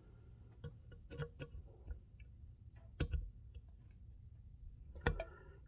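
Scattered small metallic clicks and taps from a pick tool working a retaining pin out of a 6R80 transmission valve body. The sharpest click comes about three seconds in.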